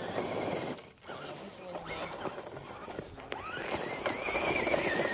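Electric motor of an Axial Jeep Wrangler R/C crawler whining, with the tyres crunching over loose dirt and twigs. The motor's whine rises in pitch about three and a half seconds in as it speeds up.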